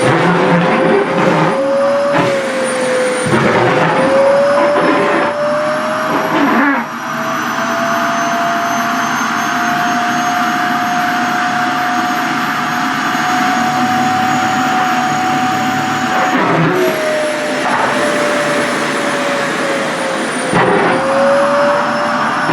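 Sharp EC-KP7F-A vacuum cleaner running with its nozzle sucking at a dress's fabric. The motor's whine wavers as the cloth flutters and is drawn in. About seven seconds in, the pitch rises and holds steady while the fabric seals the nozzle, then drops back and wavers again near the end.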